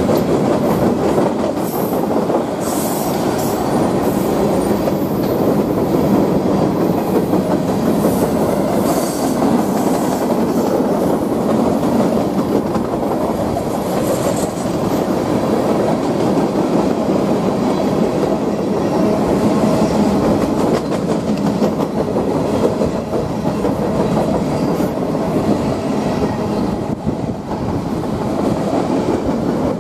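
Freight cars of a mixed freight train rolling past close by: a steady, loud rumble of steel wheels on the rails, with a few brief high metallic sounds from the cars.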